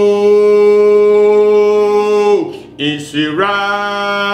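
A man singing a worship chorus unaccompanied, holding one long note that falls away about two and a half seconds in, then starting the next note after a short break.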